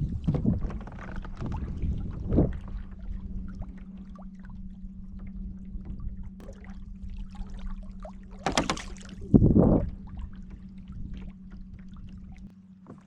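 Kayak moving on the water with water sloshing and a low wind rumble, over a steady low hum. About eight and a half seconds in there is a sharp splash or knock, followed by a heavier, duller one a second later.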